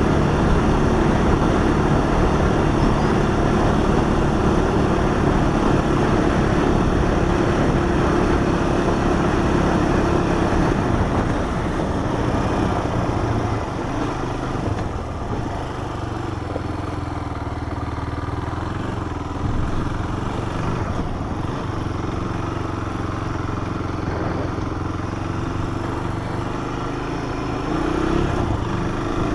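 Honda four-wheeler's engine running steadily while it is ridden. It eases off and drops in pitch about twelve seconds in, then picks up again near the end.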